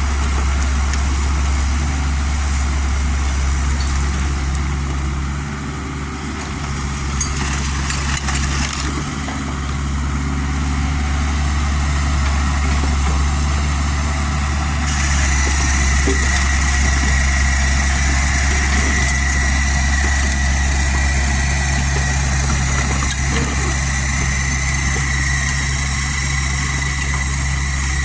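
Diesel engine of a Kubota U50 mini excavator running steadily, a constant low rumble. About halfway through, a steady high whine joins it.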